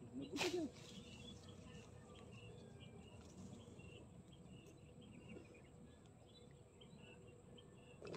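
Faint outdoor ambience of scattered short high chirps from insects and birds, with one brief louder sound about half a second in.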